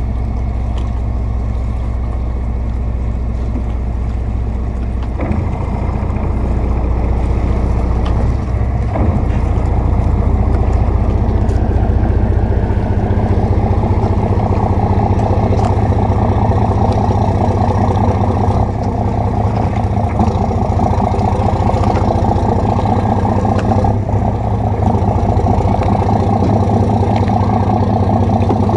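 Lobster boat engine running steadily at low speed, growing louder about ten seconds in.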